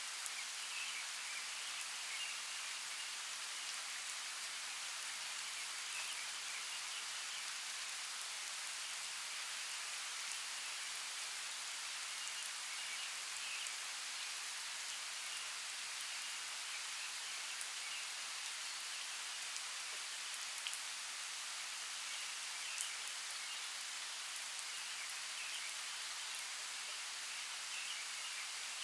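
Steady rain hiss with scattered raindrop ticks, and faint, scattered high chirps from birds throughout.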